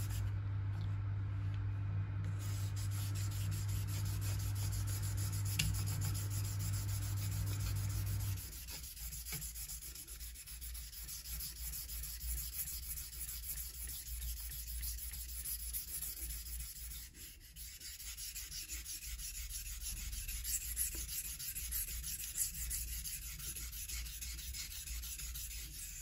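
Swiss Army knife blade being stroked back and forth on the 1000-grit side of a combination whetstone, a continuous scraping rub. It is working the second side of the edge once a burr has formed on the first. A steady low hum sounds under it for the first eight seconds or so, then stops.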